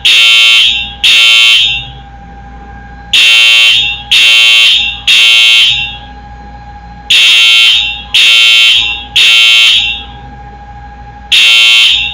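Wheelock EHS-DL1 electronic fire alarm horn sounding Code 3, the temporal-three evacuation pattern: loud, harsh horn blasts in groups of three, about one a second, with a pause of about a second and a half between groups. A faint steady tone hums in the gaps.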